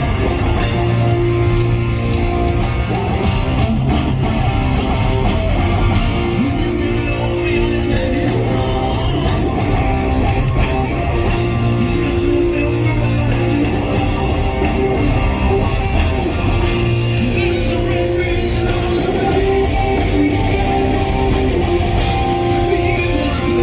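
Hard rock band playing live and loud, with electric guitar at the fore over bass and drums.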